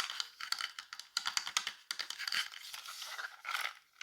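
Brush bristles swept over the microphone in a series of short strokes, a dense scratchy crackling.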